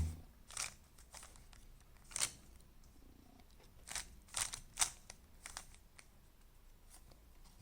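Plastic Rubik's cube faces being turned by hand through an edge-aligning move sequence: a series of short clicks and scrapes, several in quick succession about halfway through.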